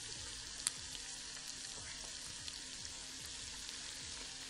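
Flounder fillets frying in melted butter in a frying pan: a steady sizzle with a light crackle, and one sharper pop a little under a second in.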